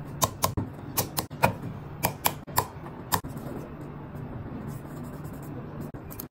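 Small sharp clicks and taps of a precision screwdriver and tweezers on the metal brackets and screws inside an opened iPhone 13 Pro Max: about ten clicks in the first three seconds, then only faint handling sounds over a low steady hum.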